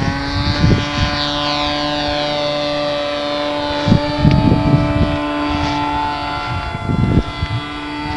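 Engine of a radio-control model Extra 330 aerobatic plane running at a steady high speed, a constant buzzing drone. Short bursts of low noise come about 4 and 7 seconds in.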